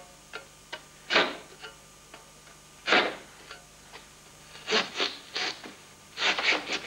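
A large kitchen knife scraping and squashing the remains of an onion on a metal bench vise: about five short rasping strokes a second or two apart, with small clicks between them.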